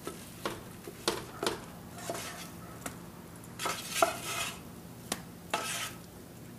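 A spoon scraping and knocking against the inside of a cooking pot as sticky peanut brittle is scooped out. Irregular scrapes and clunks come about two a second, with a few longer scrapes around the middle and near the end.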